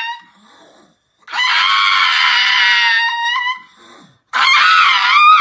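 Pug howling: two long, high-pitched howls, the second starting about four seconds in and wavering up and down in pitch.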